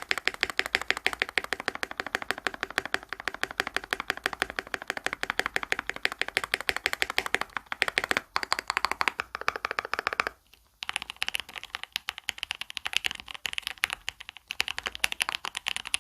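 Fast typing on a mechanical keyboard: a rapid, even run of key clacks. It stops for about half a second roughly ten seconds in, then resumes sounding thinner, with less low end.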